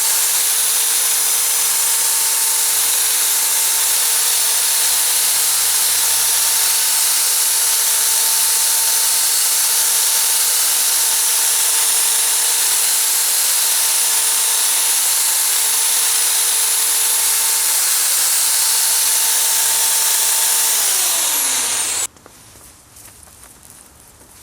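Electric drill spinning a Mothers PowerBall polishing ball against a headlight lens, a steady motor whine over loud rubbing hiss. About 21 seconds in the drill is released: the whine winds down in pitch and stops.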